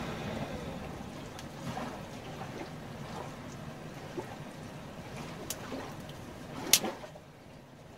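Dry sticks being snapped by hand at a campfire: a few small cracks, then one loud sharp snap near the end, over a steady hiss.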